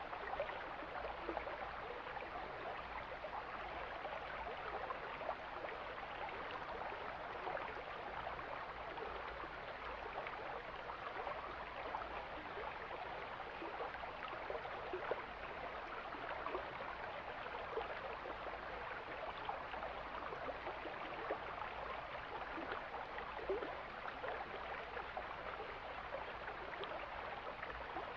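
Mountain stream flowing: a steady rush of water with frequent small splashes and gurgles.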